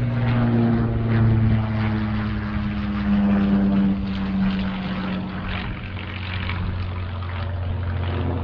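Supermarine Spitfire flying overhead, its V12 piston engine running steadily with a pitch that falls slowly as the plane passes.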